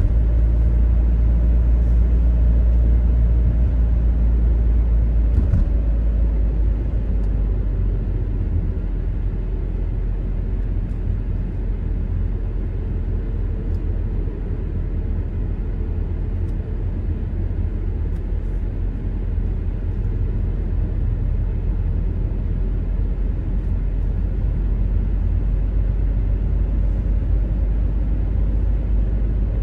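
Steady low rumble of a car driving along an open road, heard from inside the cabin: tyre and engine noise.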